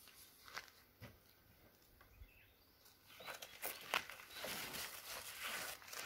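Canvas awning being swung open by hand: faint rustling and brushing of the heavy fabric with a few light clicks from the arms, busier in the second half.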